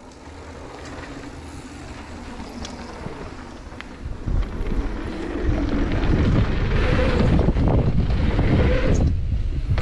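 Wind rushing over a mountain biker's helmet-camera microphone and knobby tyres rolling on a packed-dirt trail, getting much louder from about four seconds in as the bike picks up speed.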